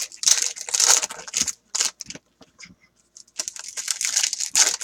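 Foil trading-card pack wrapper being torn open and crinkled by hand, in quick crackly bursts. The bursts thin out for about a second midway, then pick up again near the end.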